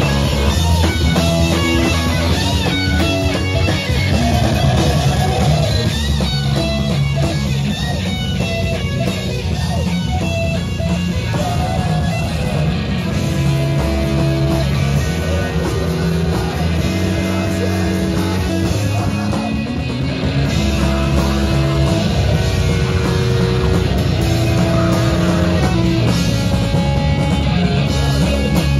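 Live metal band playing loudly and without a break: electric guitars, bass and drum kit.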